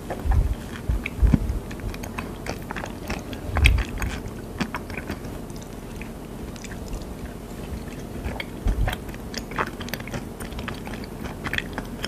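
Close-up chewing of a mouthful of yogurt-stuffed peach with a crunchy topping: irregular small crunchy clicks, with a few louder dull low thumps, the loudest in the first four seconds.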